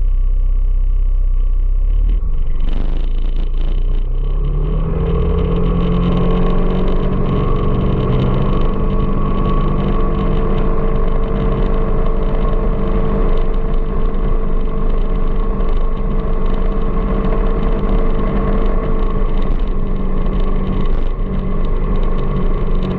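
A vehicle's engine runs while riding, with low rumble under it. About four seconds in the engine note rises and then holds steady.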